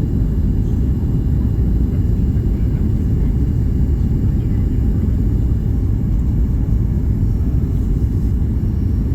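Boeing 737 MAX 8 airliner in flight, a steady low rumble of its CFM LEAP-1B engines and airflow.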